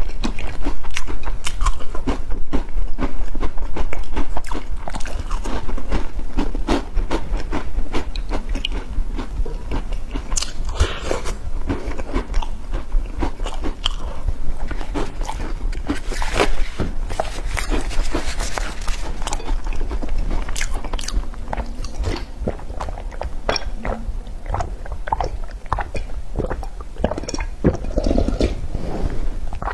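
Close-miked chewing and crunching of crispy fried food, a dense run of sharp crackling bites. Near the end, drinking from a glass bowl.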